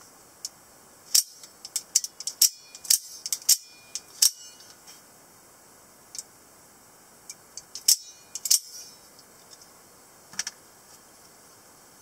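Out-the-front automatic knife, its spring-driven blade firing out and retracting as the thumb slider is worked: sharp metallic clicks in two quick clusters, about a second in and about eight seconds in, with one more click near the end.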